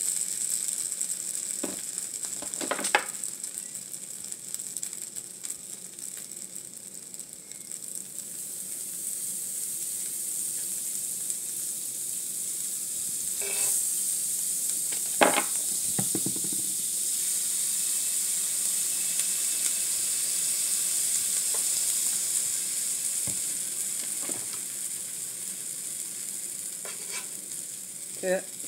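Pancake batter sizzling on a hot flat-top griddle. The hiss grows louder about a third of the way in, as fresh batter goes down, and eases near the end. A few short, sharp knocks sound now and then, the loudest about halfway.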